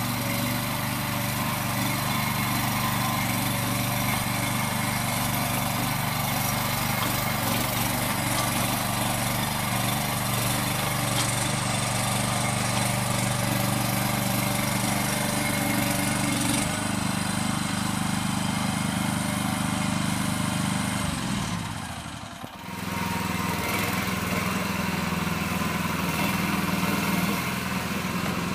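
AX12 micro mini digger's small engine running steadily as the tracked machine drives and works its loading bucket. About two-thirds of the way through, the engine note drops and briefly fades, then comes back up.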